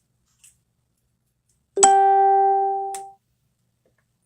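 A single pitched note, like a chime or a plucked string, starts suddenly about two seconds in, fades over about a second and is cut off by a click.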